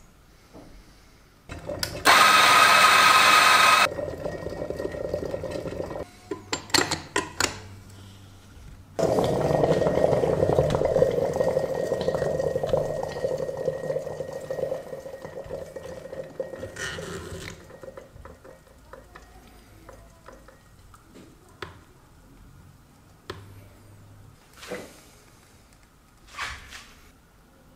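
Espresso being made on a La Peppina lever machine. About two seconds in, a coffee grinder runs loudly for about two seconds, followed by metal clicks and knocks of the portafilter. Then a long rushing, watery noise as the shot is pulled into a glass, slowly fading away, with a couple of small knocks near the end.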